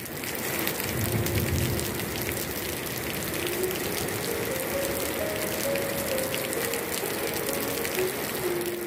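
Heavy rain pouring down and splashing on a wet hard terrace floor: a steady, dense patter.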